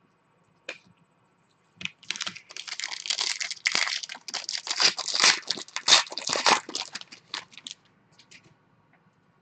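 A foil trading-card pack wrapper being torn open and crinkled by hand: a dense run of crackling and tearing for about six seconds, starting about two seconds in, after a single click.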